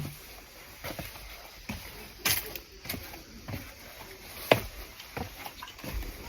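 Footsteps of a hiker walking a trail: uneven steps about once a second, with a sharper crunch about two seconds in and a loud knock about four and a half seconds in.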